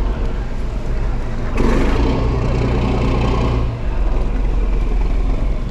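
A motor engine running steadily with a low hum, growing louder from about one and a half to nearly four seconds in.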